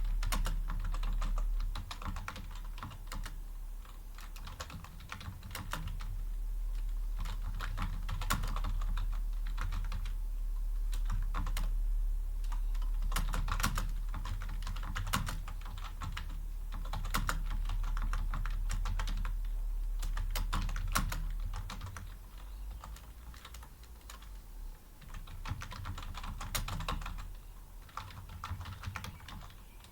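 Fast touch-typing on a computer keyboard at about 40 words per minute: dense, irregular runs of key clicks over a steady low hum. The typing thins out and gets quieter for the last several seconds.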